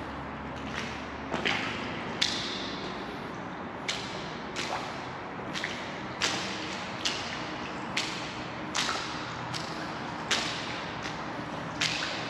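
Footsteps on a wet, gritty concrete tunnel floor, a sharp step about every 0.8 seconds with a short ring after each, over a steady background hiss.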